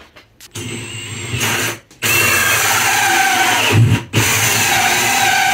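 Power drill driving a large hole saw through a bus floor of bamboo flooring, plywood subfloor and foam insulation. The drill runs loud and steady under load from about two seconds in, stops for a moment about four seconds in, then starts again.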